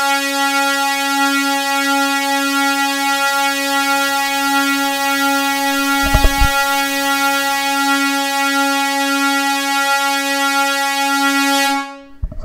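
Native Instruments FM8 software synthesizer holding one steady, loud note with a bright, hissy top end, while its Digital quality setting is raised to add high end and a more digital sound. A short click comes about six seconds in, and the note cuts off near the end.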